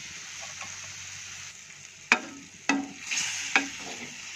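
Fish curry sizzling in an aluminium kadai as a wooden spatula stirs it. The spatula knocks sharply against the pan three times about two to three and a half seconds in, each knock with a short metallic ring.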